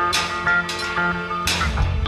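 Live band music: a ringing note struck roughly every two-thirds of a second over a sustained low bass tone, with a deep low swell building near the end.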